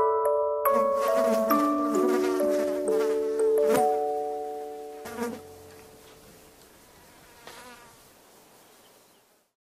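Background music fading out: held notes over a wavering, hissing texture, with two soft hits about four and five seconds in, dying away just before the end.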